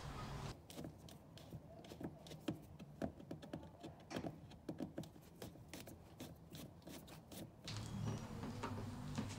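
Faint, irregular small clicks and scrapes of a screwdriver and clip-removal tool working plastic screws and clips out of a car's bumper. Near the end a steady low hum comes in.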